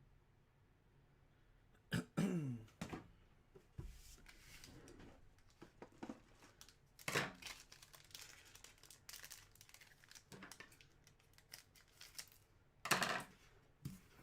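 Plastic wrapping crinkling and tearing as a sealed hockey card hobby box is opened, in scattered rips with louder ones about two seconds in and near the end. A short falling-pitch sound about two seconds in.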